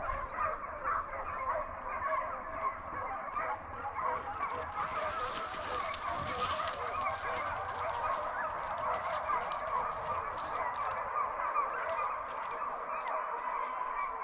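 A pack of deer hounds baying as they run a deer, many overlapping voices in an unbroken chorus.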